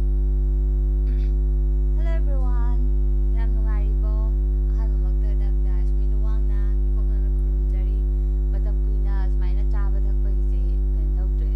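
Loud, steady electrical mains hum, a low buzzing tone with its overtones, that covers the recording: a fault in the audio chain. Faint voice-like sounds come and go beneath it.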